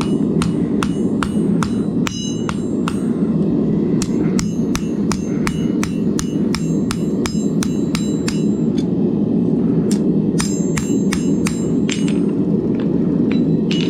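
Hammer blows on hot 1084 high-carbon steel over an anvil during rough forging of a knife blade, about two to three strikes a second, many with a short metallic ring. Under them runs the steady roar of the gas forge's burner.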